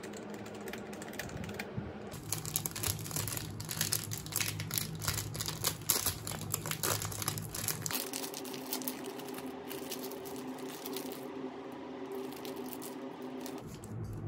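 Typing on a computer keyboard, a fast run of key clicks. About eight seconds in it gives way to the crinkling and rustling of a plastic food wrapper being opened.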